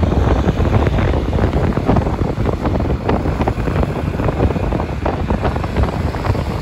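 Wind buffeting the microphone on a moving scooter, a loud, steady low rumble with the ride's road noise mixed in.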